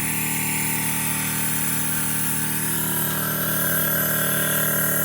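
Air compressor running with a steady, even hum.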